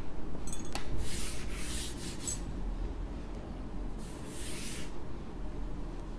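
Blackboard being wiped clean, a board duster rubbing over the chalk in two spells, the first about a second in and the second around four seconds.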